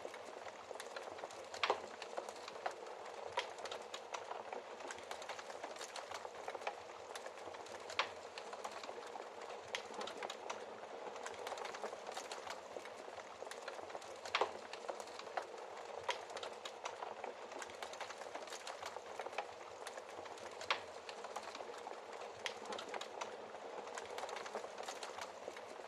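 Wood fire burning in a fireplace with a steady soft crackle. Louder sharp pops come every few seconds.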